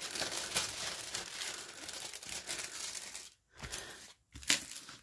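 Clear plastic protective film on a diamond painting canvas crinkling as it is peeled back off the sticky canvas and smoothed down again by hand. The crackling goes on for about three and a half seconds, then drops to a few short rustles.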